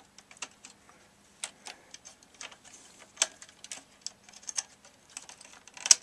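Irregular light clicks and taps of a small hand tool and wire connectors as speaker wires are worked loose inside the radio's cabinet, with one louder click near the end.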